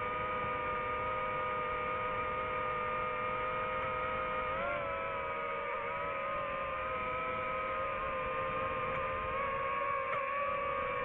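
Small quadcopter drone's propellers whining steadily, a stack of steady tones that rises slightly about four seconds in and shifts again near the end as the motors change speed.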